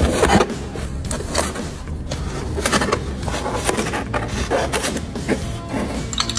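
Irregular clattering and knocking of tools and metal engine parts being handled, over a steady low hum.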